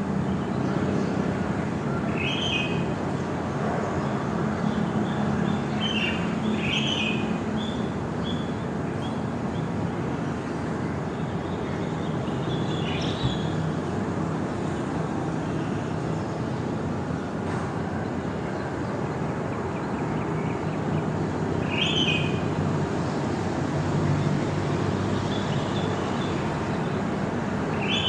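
Outdoor morning ambience: a steady low rumble under short bursts of bird chirping that come about five times, spaced several seconds apart.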